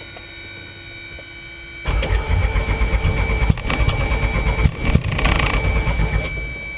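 Starter cranking the Enstrom F-28F helicopter's piston engine, beginning about two seconds in and running for about four seconds before stopping suddenly. The engine does not catch: a failed start attempt, to be retried and then primed with the boost pump.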